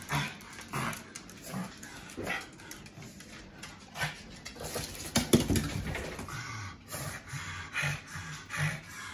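Shih Tzu–Pekingese cross dog making short, repeated low vocal sounds, about one every half second to a second, with a louder burst about five seconds in.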